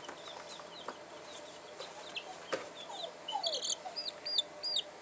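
Baby chicks peeping: scattered faint high peeps, then a quick run of loud, shrill peeps in the last two seconds. A few lower falling calls and a single knock come in the middle.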